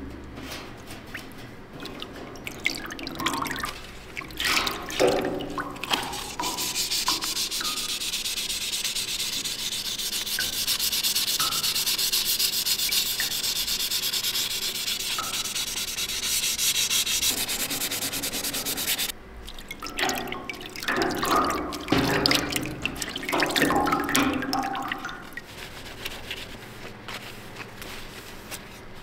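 A sponge scrubbing a Damascus steel hatchet head in a metal tray of liquid. The steady, rapid scrubbing runs for about twelve seconds in the middle and stops suddenly. Before and after it come liquid splashing and dripping as the head is moved in the tray.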